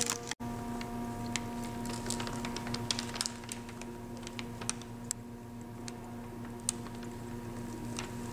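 Scattered light clicks and taps at irregular intervals over a steady low hum, with a momentary dropout shortly after the start.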